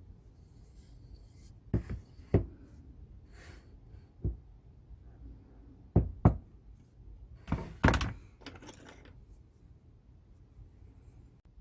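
About seven sharp knocks and taps of wood or tools being handled on a workbench, several in quick pairs half a second apart.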